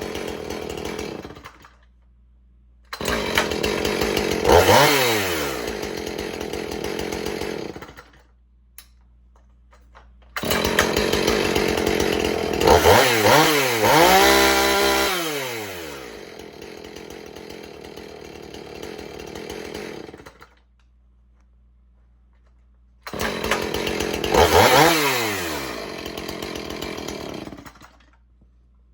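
Husqvarna 450 Rancher chainsaw's 50 cc engine running and being revved, its pitch climbing and then falling back to idle. It runs in three stretches, cut off sharply by short quiet gaps, with the most revving in the middle stretch.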